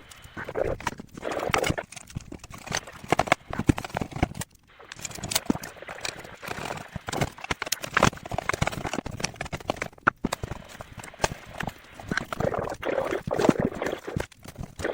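Irregular clicks, knocks and scraping of hard parts being handled while a desktop computer's power supply unit is put back together after recapping.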